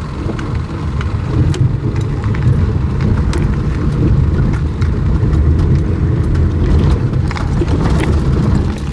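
1995 Toyota Hilux driving into a creek crossing in two-wheel drive, its engine running under load with a loud low rumble and scattered knocks and clicks. The truck is struggling for traction and ends up stuck in the middle of the crossing until four-wheel drive is engaged.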